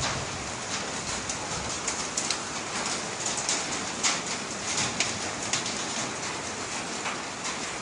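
Volcanic ashfall: sand-laden rain pattering steadily on surfaces, with many small sharp ticks of grit landing.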